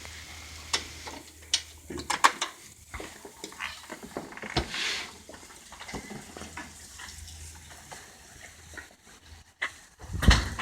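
Snow pellets and light rain falling, with irregular sharp ticks of pellets striking nearby surfaces over a soft patter.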